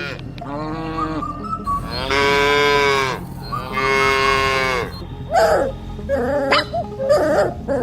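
Cows mooing: three long moos in the first five seconds, the last two the loudest. They are followed by shorter, wavering sounds.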